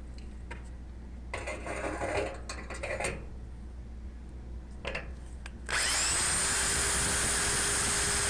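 Hammer drill starting up about two-thirds of the way in and running steadily, boring an anchor-bolt hole into concrete, its pitch rising briefly then holding. Before it, a few soft handling noises.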